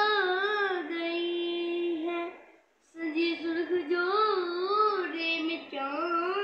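A child singing in a high voice, two long phrases with a wavering, ornamented melody, separated by a short breath pause about two and a half seconds in.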